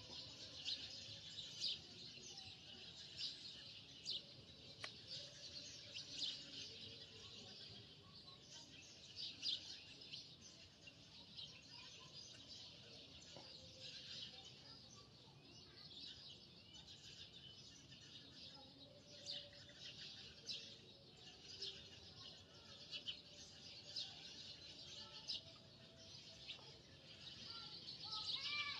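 Birds chirping continuously and faintly: many short, high chirps.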